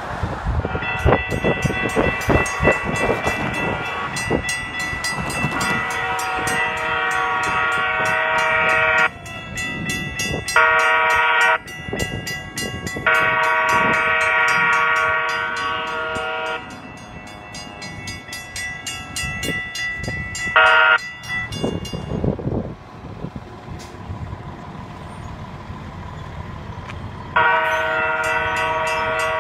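A multi-chime horn, most likely the approaching hi-rail work truck's, sounds for a grade crossing: one long blast, then shorter and longer ones, and another long blast near the end. A crossing bell rings rapidly behind it, over wind and road rumble.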